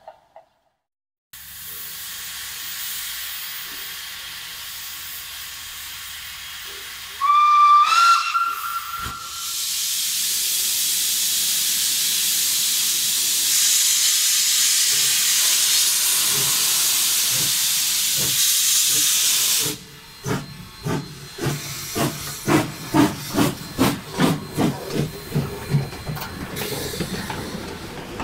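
Steam locomotive blowing a short whistle that steps up in pitch, then steam hissing loudly and steadily from its cylinders for about ten seconds. Then come exhaust chuffs at about two a second as it starts away.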